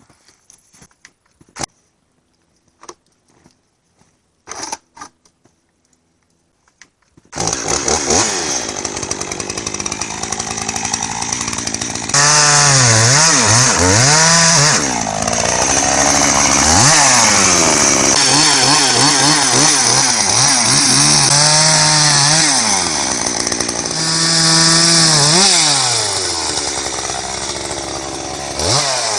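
A few faint knocks in near quiet, then about seven seconds in a chainsaw starts suddenly and runs loud, its speed rising and falling several times as it is throttled up and down while cutting into a blown-down oak.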